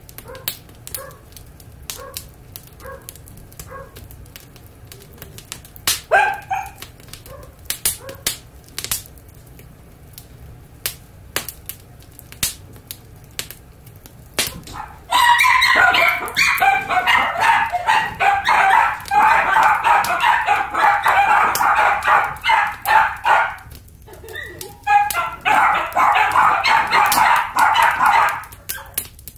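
Dachshund puppies barking and yapping rapidly and almost without pause from about halfway through, with a brief break, the sound of them playing. Before that there are faint clicks and a short whine about six seconds in.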